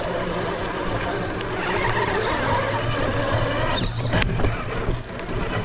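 A 1/10-scale RC rock crawler's electric motor and drivetrain running steadily as it crawls along the trail. A sharp click comes about four seconds in.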